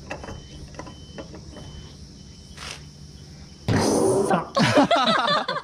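A person's loud vocal outburst, a startled exclamation with bending pitch, starting about four seconds in and lasting under two seconds, after a quieter stretch of faint clicks and an intermittent high tone.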